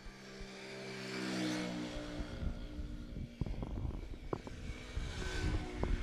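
A motor vehicle passing by: its engine hum swells over the first second and a half, then fades. It is followed by low rumbling and a few light knocks on the microphone.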